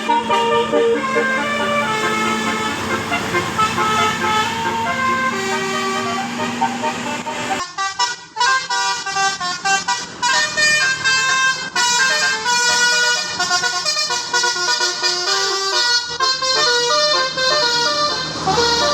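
A bus's 'telolet basuri' musical air horn playing a tune of held, changing notes. It breaks off suddenly about eight seconds in, then a new melody starts.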